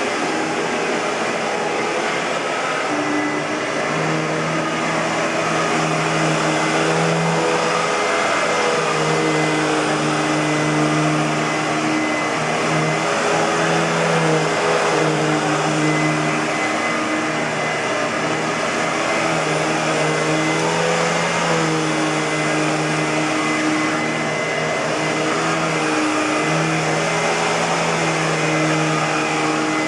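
Hoover WindTunnel bagless upright vacuum cleaner running steadily. Its motor hum shifts slightly in pitch and level every few seconds.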